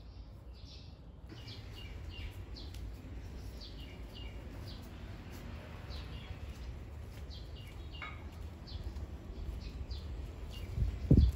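Small birds chirping in short, high, scattered calls over a steady low rumble, with a loud low thump near the end.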